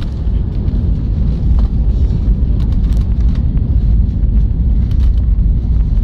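Airbus A320 cabin rumble during landing, on the runway with its ground spoilers raised: a loud, steady low rumble with scattered small rattles and knocks.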